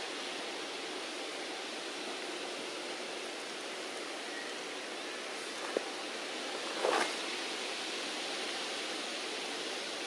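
Steady outdoor ambience: an even rushing noise with no distinct tone, broken by a short sharp click about six seconds in and a brief louder sound about seven seconds in.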